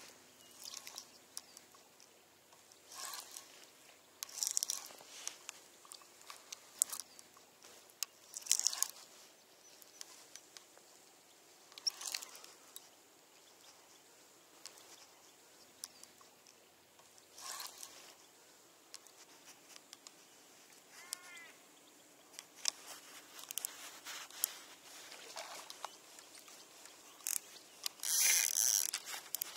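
Faint, scattered short scuffs and clicks, then near the end a spinning reel is wound in: a fast, steady ratcheting whir from its gears.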